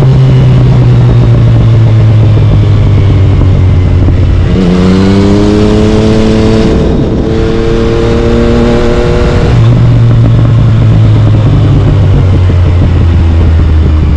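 Yamaha MT-09's three-cylinder engine through an Akrapovic carbon exhaust under way. The engine note sinks slowly, rises sharply as the throttle opens a little under five seconds in, holds, then drops back about halfway through and settles low.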